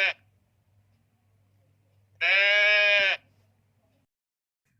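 A goat bleating: the end of one bleat right at the start, then one long, steady bleat about two seconds in.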